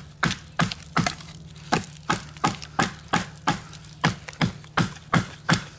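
An Ozark Trail fixed-blade knife being batoned down through a thick board: evenly spaced sharp knocks, about three a second, as its spine is struck over and over and the blade works through the wood.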